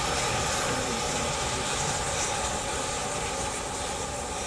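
NM25 steam locomotive standing with steam up, giving off a steady hiss of steam.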